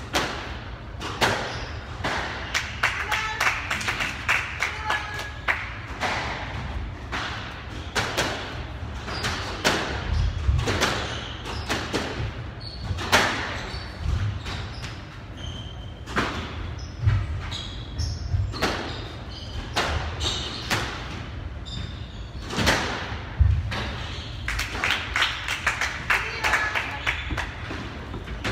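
Squash rally: the ball cracking off rackets and the court walls in a run of sharp knocks, roughly one a second, with heavier low thuds now and then.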